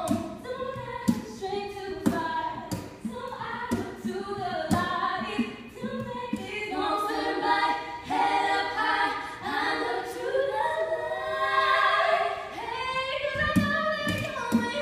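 Female voices singing together in harmony over two acoustic guitars strummed in a steady rhythm; the voices swell fuller about halfway through.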